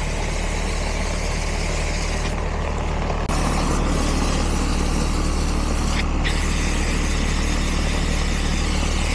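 Outdoor air-conditioning condenser unit running, a steady low hum from the compressor and fan that grows louder about three seconds in.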